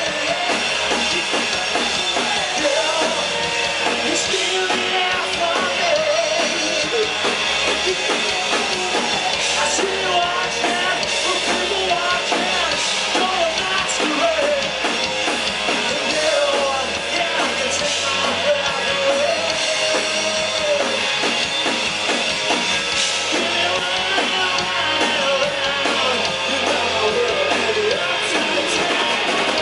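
Rock band playing live, with drum kit and electric guitars and a wavering lead line over them.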